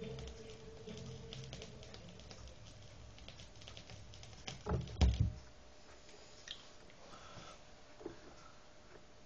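A 45 rpm vinyl single's song fades out on the turntable, leaving low record surface hiss with faint stylus clicks. A dull thump sounds about five seconds in.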